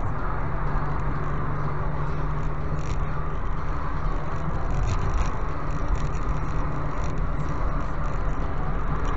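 A car driving, heard from inside the cabin: steady engine and tyre noise with a low hum and a few faint ticks.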